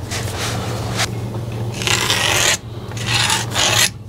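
A line being marked along a spirit level on a rough rendered wall: a few scratchy rubbing strokes, each under a second, the strongest two in the second half, over a steady low hum.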